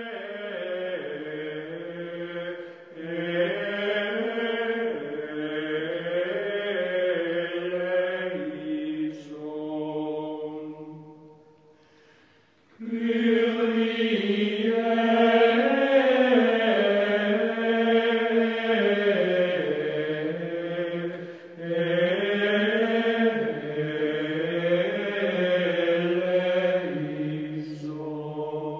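Slow chant in several voices singing long held notes together, the lines moving in step. It fades out a little before halfway and comes back abruptly a second or so later.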